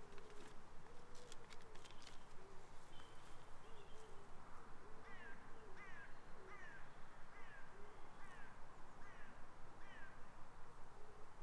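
Woodland ambience of repeated low owl-like hooting, with a run of short falling chirps at about one a second in the second half and a few faint clicks near the start.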